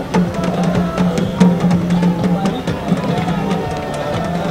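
Music led by heavy drumming, with drum strokes falling in a steady beat.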